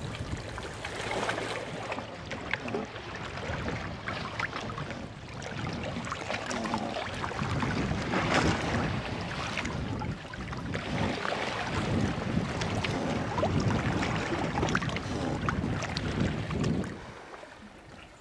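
Water splashing and lapping against the hull of a small boat under way, with wind buffeting the microphone. The sound dies down near the end.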